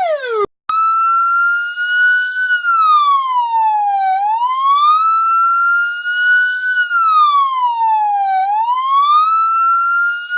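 PATLITE SAP-500E electronic siren: the tail of a fast, repeatedly falling tone cuts off about half a second in, and after a short gap the siren switches to a slow wail that rises and falls about every four seconds.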